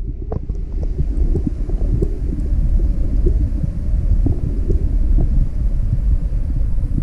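Flowing stream water heard underwater through a submerged GoPro: a steady low rumble with small ticks and crackles scattered through it.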